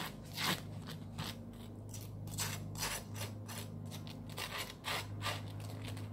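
Butter knife scraping mayonnaise across a slice of white bread in a string of short spreading strokes. A steady low hum runs underneath.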